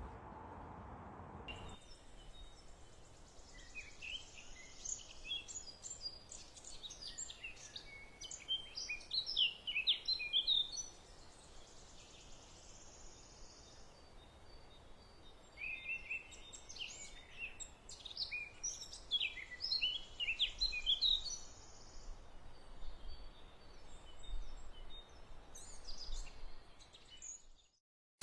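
A songbird singing: quick high chirps and trills in two long phrases, starting about four seconds in and again after about sixteen seconds, over a faint outdoor hush.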